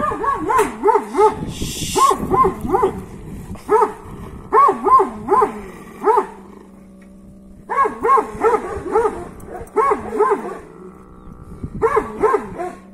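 Dog barking excitedly in quick runs of three to five barks, about three a second, with short pauses between the runs.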